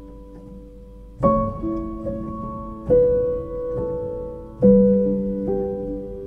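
Background piano music: slow, held chords struck three times, about every second and a half, each fading away before the next.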